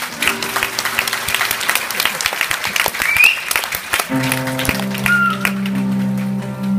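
Audience applauding loudly; about four seconds in, sustained keyboard chords begin and the clapping thins out beneath them.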